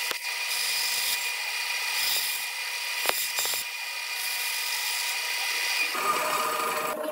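Benchtop bandsaw running, its blade cutting a clear plastic sheet: a steady whine over a high hiss, with a few short ticks as the piece is fed and turned. About six seconds in, a lower, different sound takes over.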